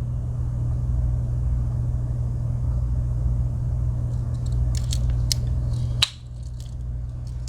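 A few sharp metallic clicks, about four to six seconds in, as the tools of a Victorinox Huntsman Swiss Army knife are snapped shut and opened on their back springs. Under them runs a steady low hum that cuts off about six seconds in.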